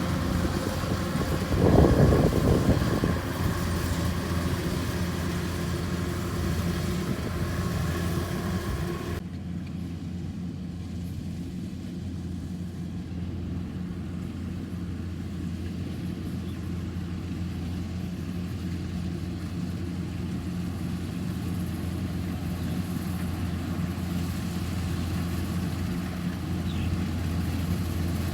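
Farm machine's engine running steadily at an even speed, with a brief louder rush about two seconds in. A hissy upper layer drops away about nine seconds in, leaving the engine hum on its own.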